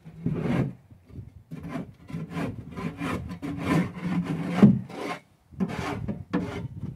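A long-handled tool scraping the plywood floor of a wooden feed bin in quick repeated strokes, with a short pause about five seconds in, as the bin is cleaned out.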